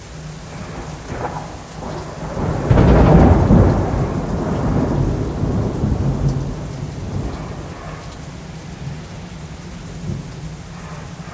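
Thunderclap over steady rain: a sharp crack almost three seconds in, then a rolling rumble that dies away over about five seconds.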